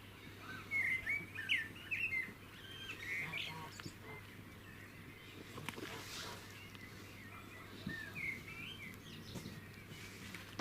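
Small birds chirping and trilling in quick short phrases, busiest in the first couple of seconds and again near the end, over a faint steady low hum.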